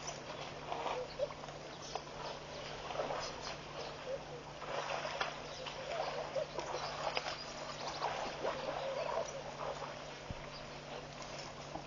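Dry branches and twigs crackling and rustling in irregular short bursts as African elephants browse a fallen dead tree, over a steady low electrical hum.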